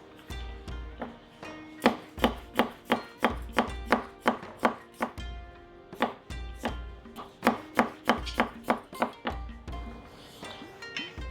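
Kitchen knife chopping through vegetables onto a cutting board in a steady run of about three cuts a second, with a brief pause partway through, over background music with a soft beat.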